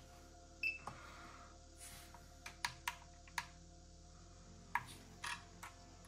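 A short electronic beep from a DJI screen remote controller as it is switched on, then a scattered run of light plastic clicks as the drone's power button is pressed and the drone is handled.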